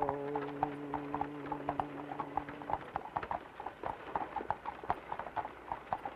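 Horse's hooves clip-clopping at a steady walk, pulling a wagon. Over the first few seconds a man's voice holds one long low sung note, then breaks off.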